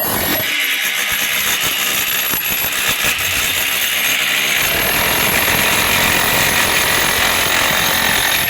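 A power tool running steadily with a fast, rapid hammering rattle, cut off abruptly at the end.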